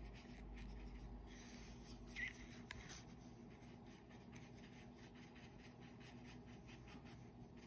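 Very faint tapping and scratching of a small watercolor brush dabbing paint onto cardstock paper, over a faint steady hum. One brief, slightly louder sound about two seconds in.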